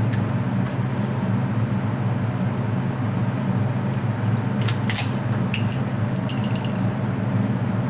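A run of small metallic clicks and clinks, some with a short high ringing ping, about four and a half to seven seconds in, over a steady low hum.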